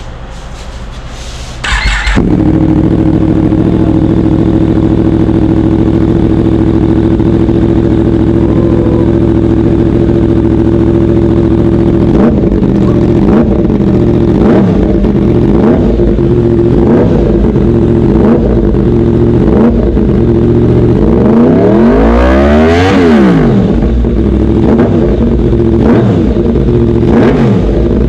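Yamaha MT-10's crossplane inline-four, breathing through an Austin Racing titanium slip-on and mid-pipe, starts about two seconds in and idles steadily. Near the middle it takes a string of short throttle blips, then one longer rev that climbs and falls, and more blips follow.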